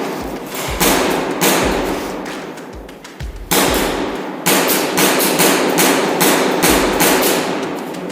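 Music with heavy, hammering percussive hits and deep bass thumps.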